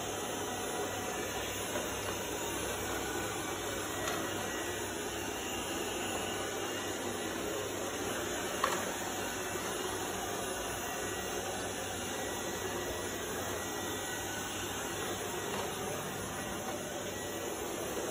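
iLife V55 Pro robot vacuum running steadily with an even whirring hum, and a single sharp click about nine seconds in.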